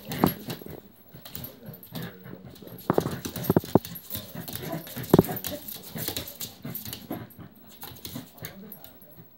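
Two dogs playing tug-of-war over a rope toy: dog play noises with scuffling on a wooden floor, and a few short, sharp sounds around three seconds in and again about five seconds in.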